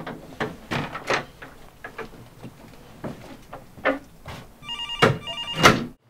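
A string of irregular knocks and clatters, then, near the end, a telephone ringing with a quick run of short repeated electronic tones: an incoming call.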